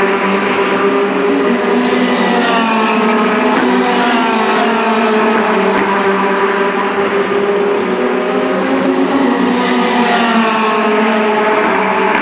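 Formula Renault 2.0 race cars' engines running at high revs, several at once and without a break, their pitch sweeping up and down as they accelerate and shift, about two to five seconds in and again near the end.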